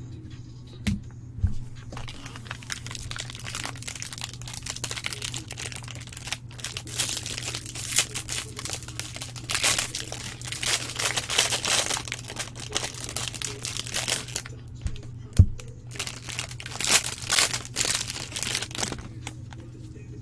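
Foil wrapper of a baseball card pack crinkling and tearing as it is opened by hand. There is a sharp knock about fifteen seconds in.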